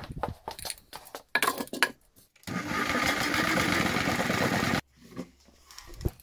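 A spray paint can clamped in a homemade motor-driven shaker rattles loudly and steadily for about two seconds, mixing the paint, then stops abruptly. Before it, clicks and knocks as the can is handled and set into the shaker.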